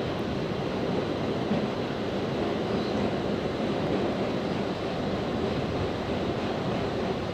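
New York City G train subway car running through the tunnel: a steady rumble and rush of wheels on the rails, with no single clanks standing out.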